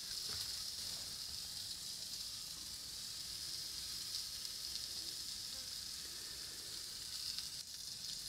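Entrecote steak sizzling steadily on a hot cast-iron griddle plate, a continuous hiss with a few small crackles here and there.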